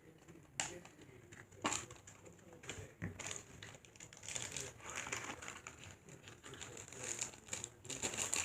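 Plastic blind-bag packaging crinkling as it is handled and unwrapped, with small irregular clicks and rustles that grow busier in the second half.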